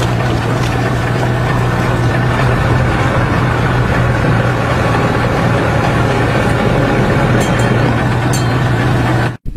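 A boat's engine running steadily, a constant low hum under a rushing noise, cutting off suddenly near the end.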